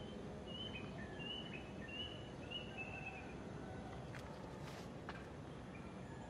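A songbird calling a run of short whistled notes, each high note followed by a lower one, about two a second, which stop about halfway through. Under it is a steady faint hum of outdoor background noise, with a few light clicks near the middle.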